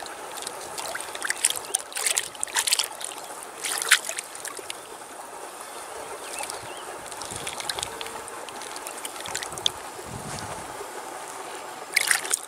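River water running steadily, with a cluster of sharp splashes between about one and four seconds in and more near the end, as a large river carp is held in the water to revive before release.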